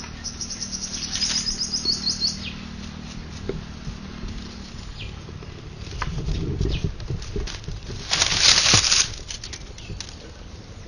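Dry twigs being handled and fed into a wood-fired clay stove: rustling and snapping, with a loud rustling rush about eight seconds in. A bird trills rapidly in the first two seconds.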